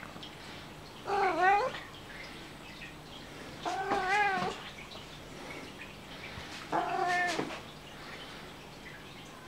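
A ginger long-haired tomcat meowing three times, each meow under a second long and about three seconds apart.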